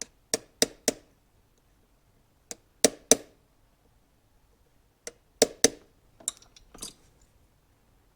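Sharp metal-on-metal taps in quick groups of three or four, about eleven in all, each with a brief ring: a small tool tapping down a raised retaining washer on a motorcycle carburetor.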